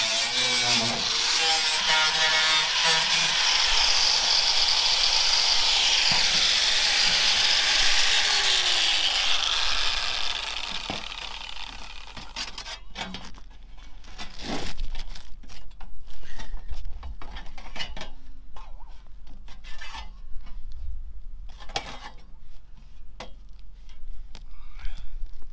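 A power saw cutting wood for about ten seconds, then stopping. It is followed by scattered knocks and taps.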